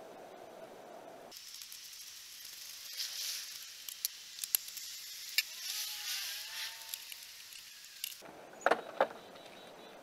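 Torx screwdriver backing out the tail-light screws: scattered small metallic clicks and scrapes over a steady hiss, with two louder clicks near the end.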